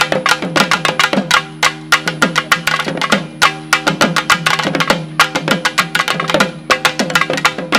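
Naiyandi melam folk ensemble playing: dense, fast drum strokes over steady held notes from a reed pipe, with some drum strokes bending down in pitch.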